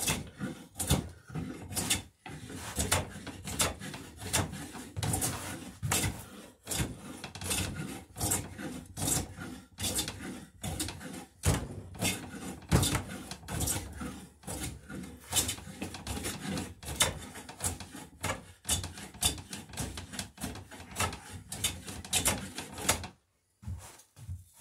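Hand plane shaving a wooden transom knee clamped in a vise, in quick repeated strokes of about two a second, each a short scraping hiss of the blade cutting along the grain. The strokes stop about a second before the end.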